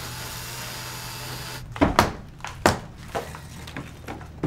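Arbortech AllSaw cutting into brick, running steadily then stopping abruptly about a second and a half in. It is followed by a series of sharp knocks, about six in three seconds, as the cut bricks are knocked loose.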